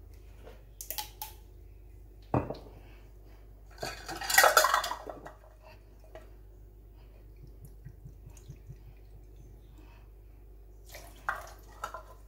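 Kitchen handling sounds as a vanilla bottle is uncapped and measured out into a plastic measuring spoon over a mixing bowl: light clicks and a knock, then a louder scraping rustle about four seconds in. After that come faint small ticks, and a few more clicks near the end.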